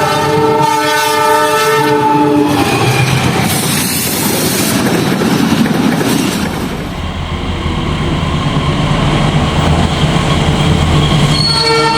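Diesel locomotive's multi-note whistle horn sounding a chord for about two and a half seconds: the semboyan 35 signal. The train then runs past with a deep rumble and wheels clattering over the rail joints, and the horn chord starts again near the end.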